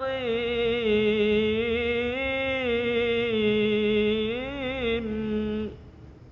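A man's voice in Quranic recitation (tilawah) holding one long melodic note on the last word of the verse, "mustaqīm", with slight wavers and a turn near the end. It breaks off about five and a half seconds in, leaving faint room tone.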